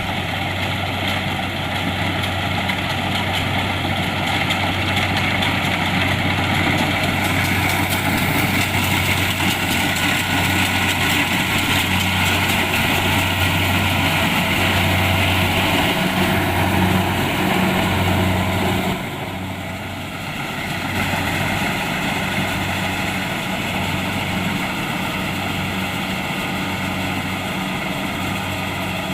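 Kubota DC-70 Plus combine harvester's engine running steadily with a low hum. It grows louder and busier for a stretch, then drops suddenly about two-thirds of the way through and carries on more quietly.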